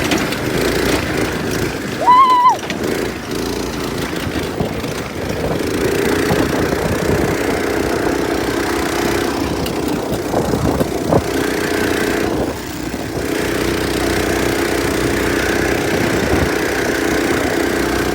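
Go-kart's small engine running loudly while it is driven, its note easing off briefly about two-thirds of the way through. A short high cry cuts in about two seconds in.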